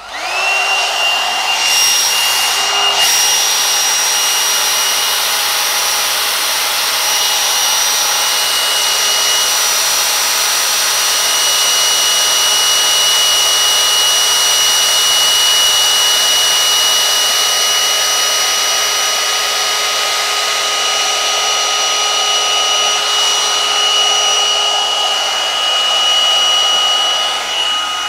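Wish knockoff brush hair dryer (a Revlon One-Step dupe) running on high: a steady rush of blowing air with a constant high motor whine, which rises in pitch briefly as it is switched on at the start.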